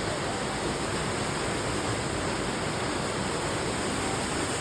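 Steady rush of a waterfall and river water.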